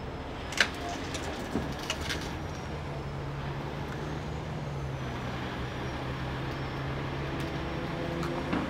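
Heavy rotator tow truck's diesel engine running steadily, with a few sharp clicks in the first two seconds and the engine note rising near the end as the operator sets the lift going.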